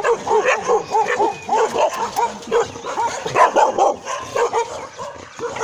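Several dogs barking and yipping in a rapid run of short, overlapping barks, about three or four a second.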